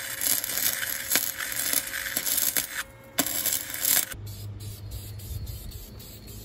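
Wire-feed (MIG) welder arc crackling and spitting while welding a steel radiator support, with a short break about three seconds in. It cuts off abruptly about four seconds in, leaving a quieter low hum.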